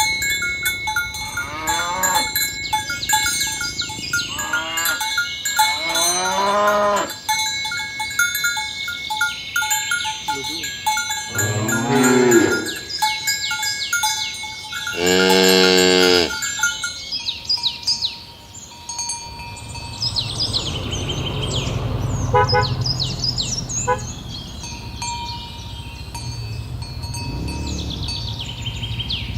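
Cows mooing: about five long, drawn-out moos in the first half, the loudest near the middle, with a fainter one near the end. Steady bell tones ring under the calls through the first half. Bird chirps follow in the quieter second half.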